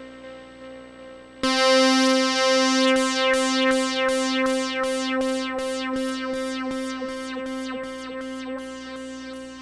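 Electronic music: a sustained synthesizer chord enters abruptly over a steady low hum and is pulsed by a regular beat about three times a second, slowly fading.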